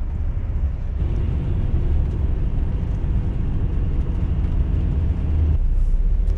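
Heavy truck driving on a motorway, heard inside the cab: a steady low rumble of engine and tyres. The higher road hiss drops away near the end.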